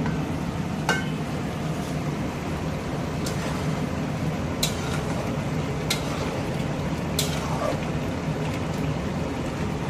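Chicken gravy simmering in an aluminium pot on a gas stove, a steady hiss, with a metal lid and spatula clinking sharply against the pot about four times as the meat is stirred.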